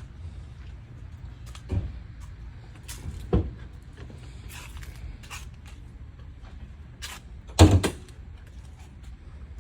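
Scattered clicks and knocks with a few louder thumps, the loudest about three quarters through, over a low steady hum: the sound of handling parts and tools around a car.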